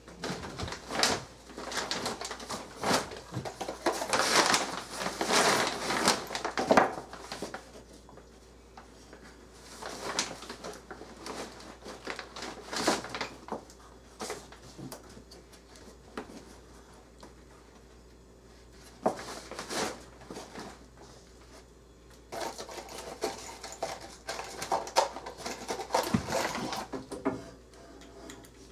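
Irregular clicks, knocks and rustling of objects being handled, in bunches with quieter stretches between.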